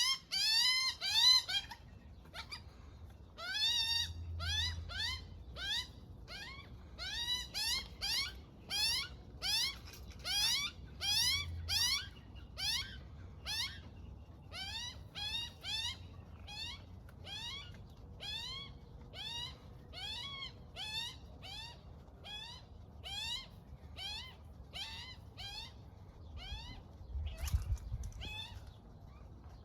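Young magpie begging: a long series of short rising, squeaky calls, about one to two a second, a food-begging call to its parent.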